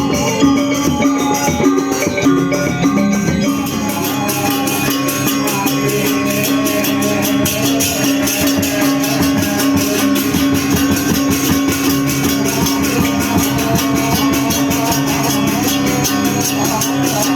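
Music with plucked strings and drums and a steady beat.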